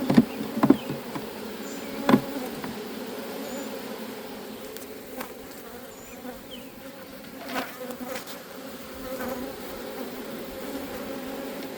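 A swarm of honeybees buzzing in a steady hum around an open hive box. A few short knocks come in the first couple of seconds and again about seven and a half seconds in, as wooden frames are set into the box.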